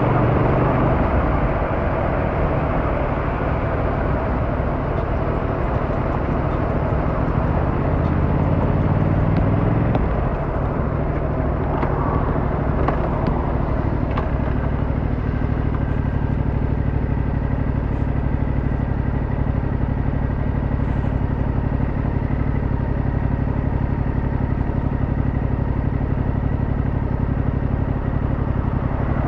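Yamaha MT-07's 689cc inline-twin engine running under way, heard from the rider's position. Its pitch climbs as it revs up for several seconds, drops suddenly about ten seconds in, then holds steady at cruising speed.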